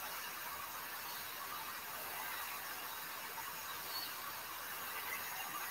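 Faint steady hiss of room tone and microphone noise, with no distinct events.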